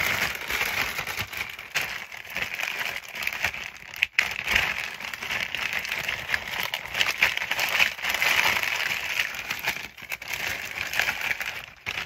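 Clear plastic bag crinkling and crackling as it is handled, with a short pause about four seconds in.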